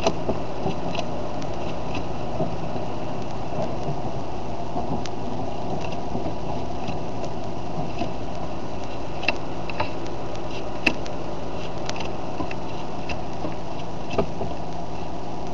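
Playing cards being dealt one by one onto piles on a wooden table: light, scattered taps and clicks, a few sharper ones near the end, over a steady background hiss and low hum.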